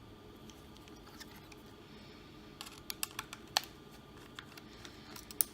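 Scattered small, sharp clicks and taps of laptop parts and screws being handled during disassembly, with a quick cluster of clicks about three seconds in and a few more near the end.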